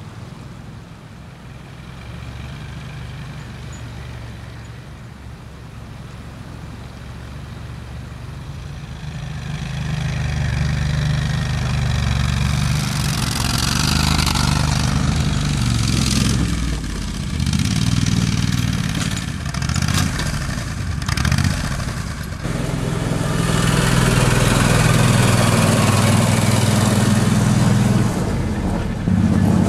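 Engine of a multi-wheeled amphibious all-terrain vehicle running as it drives, faint at first and growing much louder from about ten seconds in as it comes close, then running steadily loud near the end.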